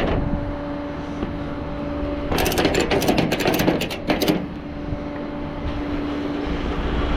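A vehicle engine running with a steady hum. About two seconds in comes a dense metallic rattle lasting about two seconds, which the mechanic puts down to the catalytic converter (the 'cat').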